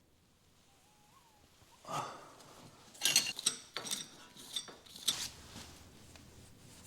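A few light metallic clinks and rattles: one about two seconds in, then a quick cluster of sharp clicks over the next couple of seconds. The wheel bearing under test runs without any audible noise, a sign the bearing is good.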